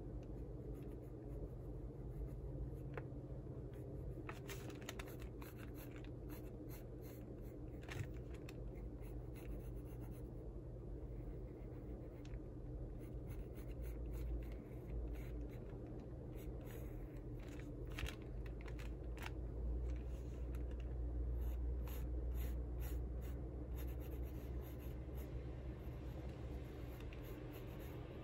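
Graphite pencil sketching on paper: irregular short scratchy strokes, over a steady low hum.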